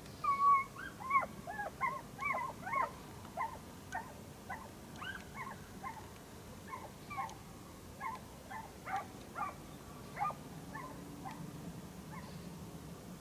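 A distant pack of dogs yelping as they run in chase, with short rising yelps, about two a second at first, that thin out and stop after about ten seconds.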